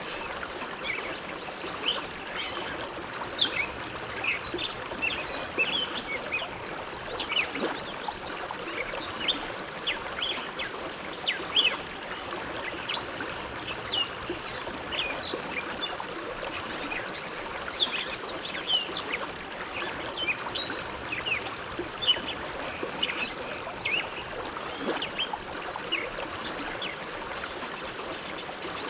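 Bow River flowing with a steady rush of water, dotted all through with many short, high chirps from small birds.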